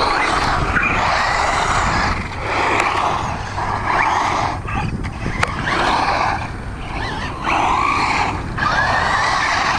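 Brushless electric RC trucks throttling in repeated bursts of about a second each, tires spinning and scrabbling on dirt and sand with a faint rising motor whine.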